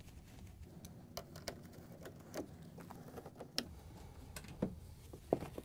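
Faint, irregular clicks and ticks of a hand nut driver backing screws out of a refrigerator's cardboard rear access cover, over a low hum.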